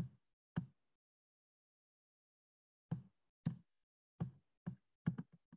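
Short, sharp clicks of a computer being worked as a PDF is scrolled: two near the start, then after a pause of about two seconds a run of clicks coming faster toward the end.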